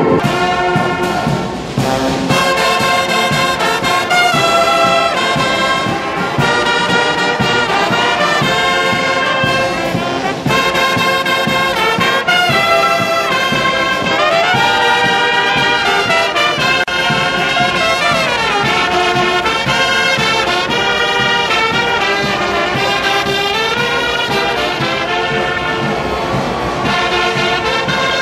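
Brass band of trumpets and trombones playing a tune together, with a few sliding notes around the middle.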